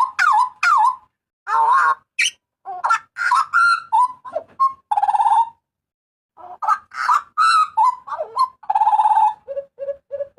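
Butcherbird calling loudly in quick runs of varied harsh and whistled notes, with a short pause midway. It ends on a string of short, evenly spaced low notes.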